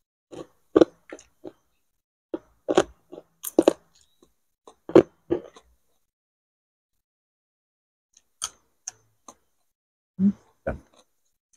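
Close-up crunching and chewing of crispy fried food, pork cracklings and fried frogs, in irregular bites. A run of crunches in the first half, a pause of about two seconds, then a few more near the end.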